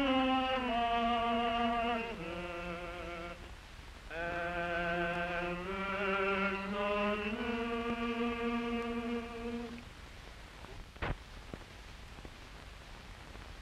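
Slow singing in long, held notes with vibrato, ending on a final held note about ten seconds in. Then only the hiss of an old film soundtrack, with a single click shortly after.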